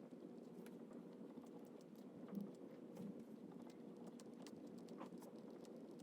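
Near silence: faint steady room hum with scattered light ticks and taps, like small desk-handling noises.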